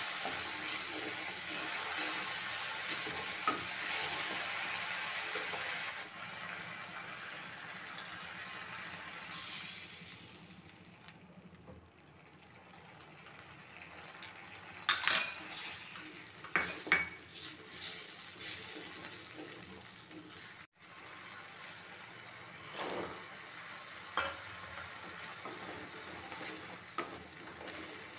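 Sauce sizzling loudly in hot oil in a metal kadai, dying down over the first several seconds. This is followed by a wooden spatula scraping and knocking against the pan as the mixture is stirred, with a quick string of sharp scrapes about halfway through.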